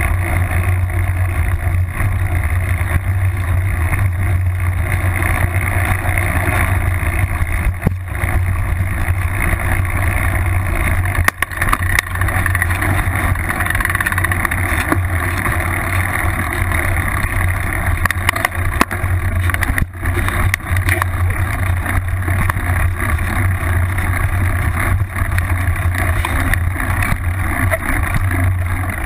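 Full-suspension mountain bike riding over a grassy trail, heard from a seatpost-mounted camera: a steady loud rumble of rolling and air noise with grass brushing against the bike, and a few sharp knocks.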